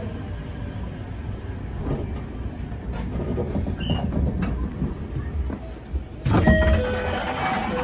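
Inside a 287 series electric limited-express train: a steady low rumble, then about six seconds in a sudden louder burst of noise with a few short held tones.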